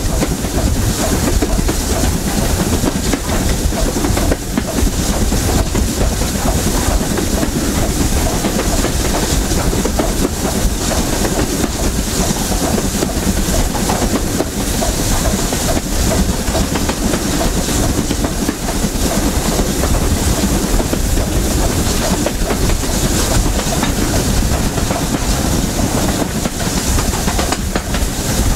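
BR Standard Class 7 'Britannia' steam locomotive 70013 hauling its train, heard from the carriage right behind it: a steady, loud rumble and clatter of coach wheels on the rails, with steam hiss.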